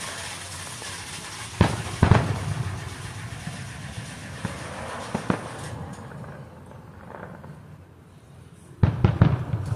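Aerial fireworks shells bursting: two sharp booms about a second and a half in, a lighter one near the middle, and a quick run of several booms near the end, each with an echoing tail.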